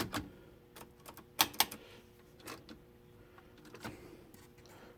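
Mechanism of an unpowered Smith-Corona 210 electric typewriter clicking as its parts are moved by hand: a few scattered sharp clicks, loudest about a second and a half in, then fainter ones.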